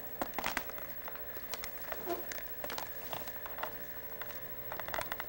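Camera-handling noise as the camcorder is moved: scattered clicks, knocks and rustles, denser near the end, over a faint steady electrical hum.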